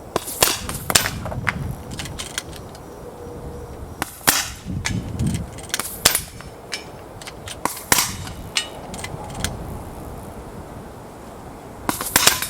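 Two bolt-action air rifles firing in an irregular string of sharp pops, a few seconds apart and bunched closer together near the end, with lighter clicks between shots as the bolts are cycled.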